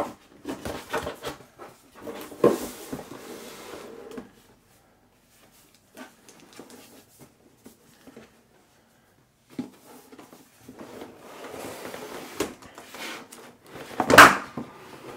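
Unboxing handling noise: tissue-paper wrap rustling and a cardboard laptop box being handled. A quiet stretch with a few light taps comes in the middle, then a loud rustle and scrape about fourteen seconds in as the laptop is lifted out of the box.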